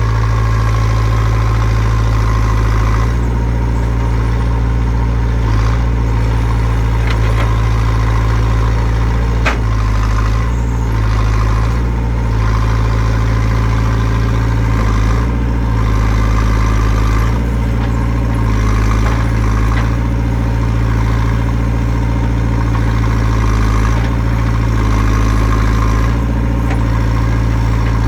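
JCB 3CX backhoe loader's diesel engine running steadily, its level shifting a little every few seconds.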